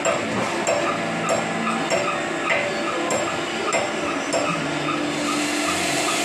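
Machine-shop machinery running with a steady hum and a regular click about every two-thirds of a second; a hiss grows louder near the end.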